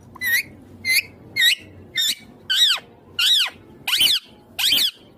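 Indian ringneck parakeet giving a run of about eight short, high calls, one every two-thirds of a second or so, each call rising and falling in pitch.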